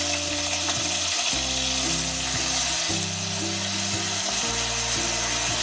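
Onion paste frying in hot oil in a pressure cooker, a steady sizzle. Underneath is background music of low sustained notes that change about every second.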